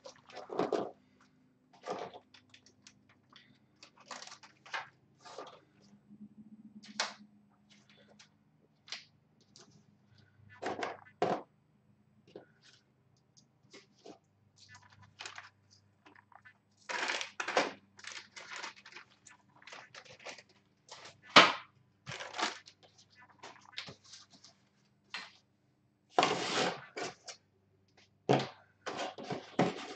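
Irregular clicks, taps and crinkles of small parts and zip-lock plastic bags being handled on a tabletop, with one sharp click about two-thirds of the way through.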